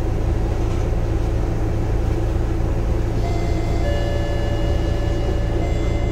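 Scania K230UB city bus's rear-mounted DC9 turbocharged five-cylinder diesel engine running steadily, heard from inside the rear of the passenger cabin as a low rumble. About three seconds in, a thin whine with several pitches joins it.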